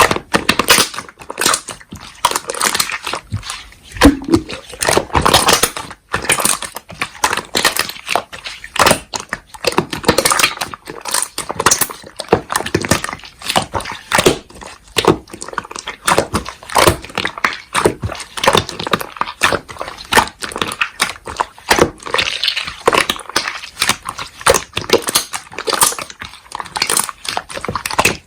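Slime squished and pressed by hand, making a dense run of irregular wet clicks, crackles and small pops.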